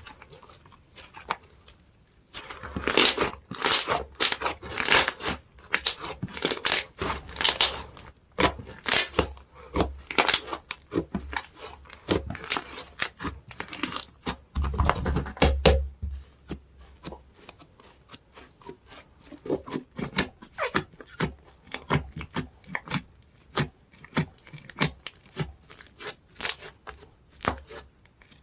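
Tacky slime being squished, stretched and pulled apart by hand: a dense run of sticky crackles, pops and tearing sounds. It starts faint, is loudest from about two seconds in, and swells again about halfway through.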